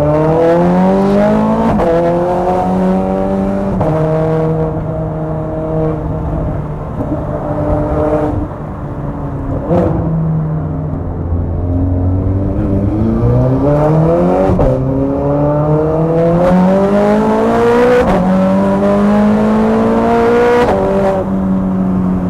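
Straight-piped Ferrari 430 Scuderia V8 pulling hard through the gears, heard from inside the cabin. The pitch climbs steadily in each gear, then drops at each of about half a dozen gear changes, several of them marked by a sharp crack.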